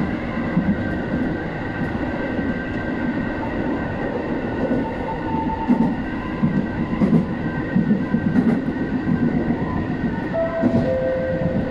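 Tobu 850 series electric train running on the line, heard from inside the front car: a steady rumble and drone, with the clack of rail joints about every second and a half in the middle. A brief squeal from the wheels or brakes comes about ten and a half seconds in.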